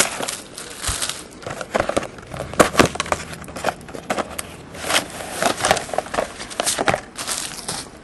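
Cardboard trading-card box, its packs and cards being handled on a tabletop: irregular rustling and scraping of cardboard and wrapper, with sharp clicks and taps scattered throughout.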